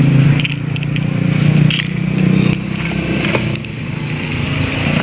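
An engine running steadily, with a few light metal clicks and scrapes of a flat screwdriver prying a clutch shoe return spring into place on a scooter's centrifugal clutch.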